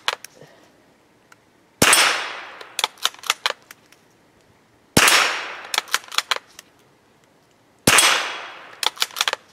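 .22 rifle fired three times, about three seconds apart. Each shot is a sharp crack with a long fading echo, followed within a second or so by a quick run of short sharp ticks.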